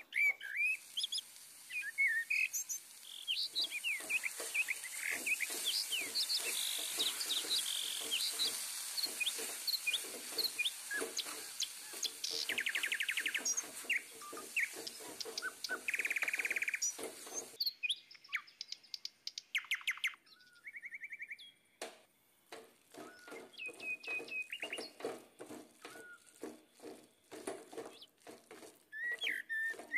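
Small birds chirping and trilling over and over, with the repeated scrape and knock of a spoon stirring a thick masala in a steel pan. A steady high hiss runs underneath and cuts off a little over halfway through.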